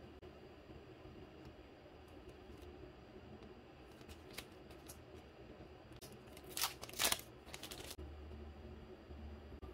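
Paper sticker flakes rustling and crinkling as they are handled and shuffled, with a few light clicks at first and a louder run of crinkling about two-thirds of the way through.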